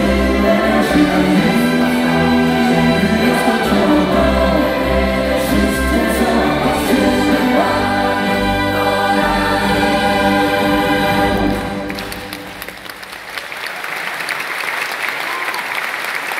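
The closing bars of a song sung by two soloists with a choir and symphony orchestra, ending on a long held chord that cuts off about twelve seconds in. The audience then breaks into applause, which builds to the end.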